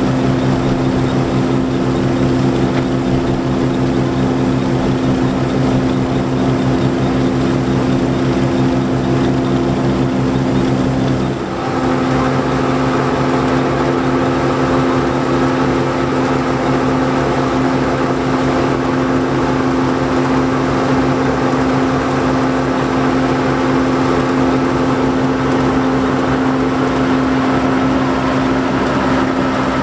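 John Deere 4425 combine's 5.8-litre six-cylinder diesel engine running steadily under load with the threshing machinery turning, harvesting wheat. About eleven seconds in, the sound dips briefly and its pitch pattern changes, then it runs on steadily.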